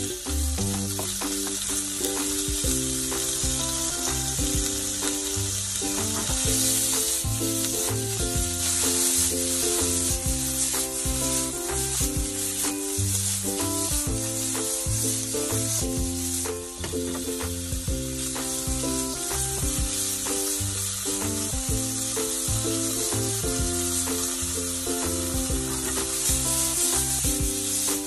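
Sliced pork and onion slices sizzling in a hot frying pan while being stirred with a spatula and tossed in the pan, with background music throughout. The sizzle grows louder about six seconds in.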